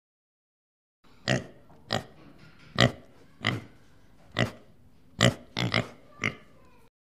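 Giraffe calls: a series of about nine short, sharp vocal sounds, starting about a second in and coming at irregular intervals, two of them close together near the end.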